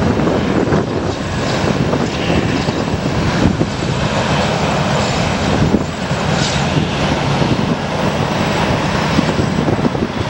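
Jet airliner engines running as the airliners move on the runway and taxiway, a steady rushing noise, mixed with heavy wind buffeting on the microphone.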